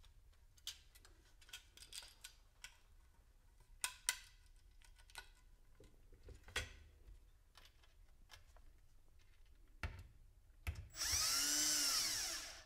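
Faint clicks and knocks of small parts being handled, then near the end a cordless drill-driver runs once for about a second and a half, its whine rising and then falling, as it drives a screw that clamps a wire whisker to the wooden antenna board.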